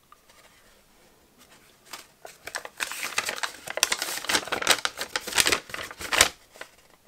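Paper rustling and crinkling as a folded paper instruction manual is unfolded and flattened by hand, starting about two seconds in and lasting about four seconds.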